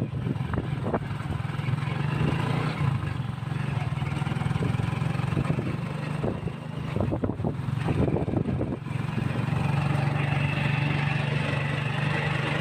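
Motorcycle engine of a tricycle running steadily under way, heard from inside the passenger sidecar. A cluster of rattling knocks comes around the middle.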